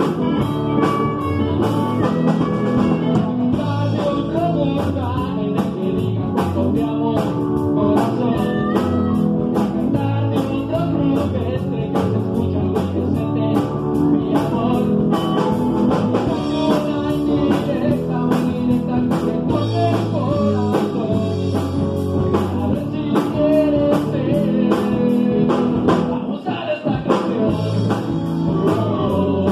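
A live rock band playing: drum kit, electric bass and electric guitar, with a lead voice at the microphone over them, running steadily with no break.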